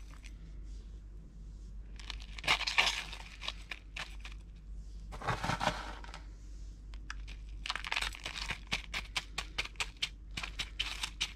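Bark chips and perlite potting mix rattling and crunching as it is scooped with a metal spoon and tipped and pushed in around orchid seedlings. It comes in spells of quick light clicks and crackles: one about two and a half seconds in, another around five and a half seconds, and a longer, denser run from about eight seconds on.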